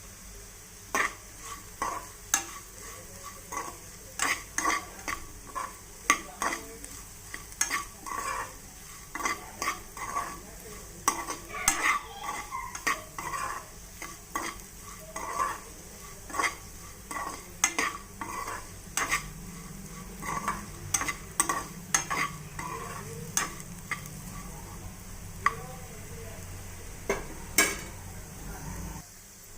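A spatula stirring and scraping spiced potato pieces in a frying pan, with irregular sharp scrapes about once or twice a second over a steady sizzle of hot oil. The stirring and sizzle stop abruptly near the end.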